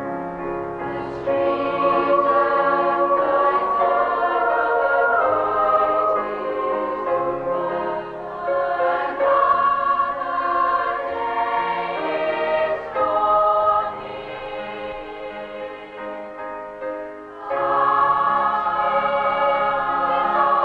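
Youth choir of mostly young female voices singing a slow, sustained melody with orchestral accompaniment. The choir swells about a second in, softens in the middle, and comes back in strongly near the end.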